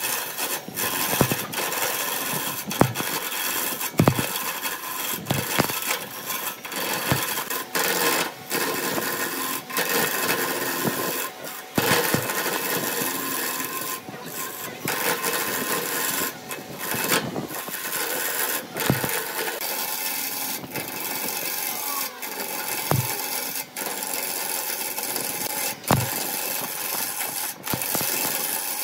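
A turning tool cutting a spinning wood blank on a wood lathe: a steady rough scraping of the tool shaving the wood, broken by frequent irregular sharp clicks and knocks.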